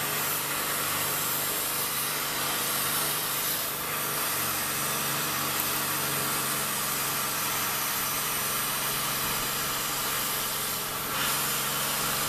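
CNC plasma torch cutting steel plate: a steady hiss from the plasma arc over a low, even hum, dipping briefly about four seconds in and again near the end.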